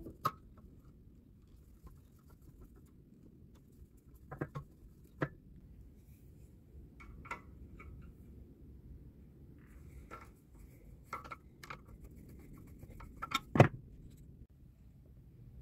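Scattered metal clicks and taps of a screwdriver working at the carburetor and throttle linkage on a Briggs & Stratton 5 hp engine while the carburetor is being removed, with a louder knock near the end.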